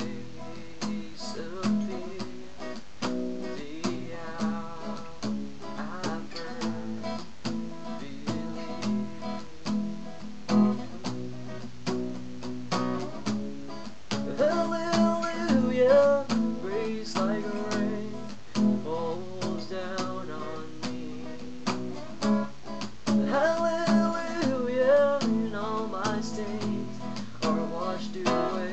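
Acoustic guitar strummed in a steady rhythm, with a voice singing over it in two stretches, about halfway through and again near the end. It is picked up by a webcam microphone, with some static.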